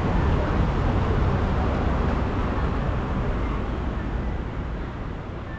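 Steady road-traffic rumble with general city ambience, no distinct single event, gradually fading down over the last couple of seconds.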